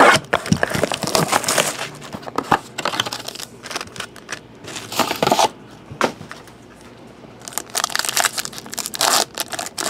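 Plastic wrapping and packaging of a trading card box being torn open and crumpled by hand, in irregular bursts of crinkling with a quieter stretch in the middle.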